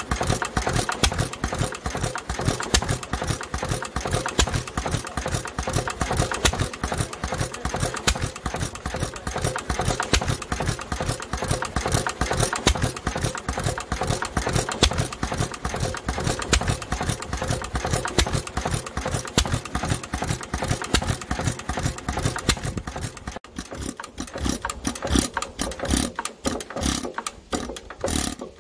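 International Harvester Type M 3 HP hit-and-miss engine running with a rapid, even beat, its crankcase breather check valve stuck so that pressure builds up in the crankcase. About 23 seconds in it stops firing and coasts down, the beats spreading out as the flywheels slow, until it stops near the end.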